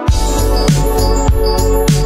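Background music with a heavy bass beat about every 0.6 s under sustained chords; the beat kicks in right at the start after a short break.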